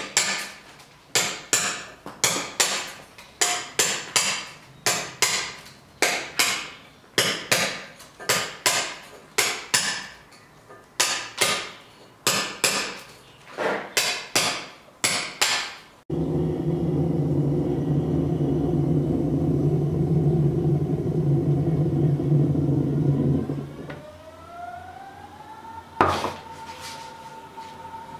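Regular hammer blows on a chisel cutting stone, about two a second, which stop abruptly about 16 seconds in. Then an espresso machine runs with a steady hum for about eight seconds, followed by a rising whistle, a single knock and a steady hiss as it brews.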